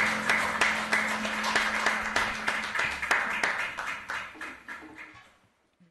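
Audience applauding with dense hand clapping, which fades away over the last couple of seconds.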